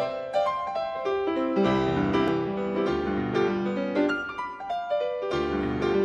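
Solo piano music, a few sparse notes at first, then fuller chords with bass coming in about a second and a half in, thinning briefly and swelling again near the end.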